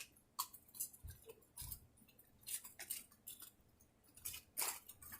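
Small plastic fidget toys being handled and packed into a case: a string of light, irregular clicks and clacks.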